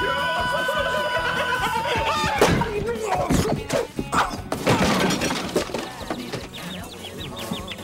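A steady held note cuts off about two seconds in. A burst of loud crashes and breaking impacts follows for a few seconds, the first the loudest, then dies down.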